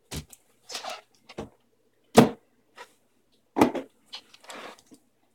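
Cardboard boxes being handled: a string of short bumps, scrapes and rustles, the loudest a thump about two seconds in, as a boxed monitor is worked out of its shipping carton.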